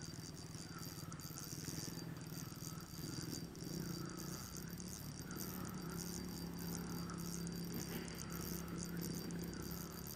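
Spinning reel being cranked to wind in a hooked fish, its gears rattling in a repeating pattern about once a second over a steady engine drone from motorbikes.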